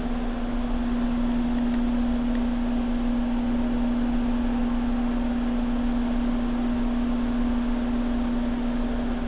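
Yates Y20 20-inch bandsaw running: a steady electric hum with one constant tone and an even rushing noise behind it.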